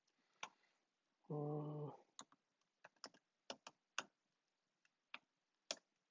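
Computer keyboard keystrokes, about a dozen irregular taps as an email address is typed. Between them, about a second and a half in, a voice gives one short, steady hum lasting under a second.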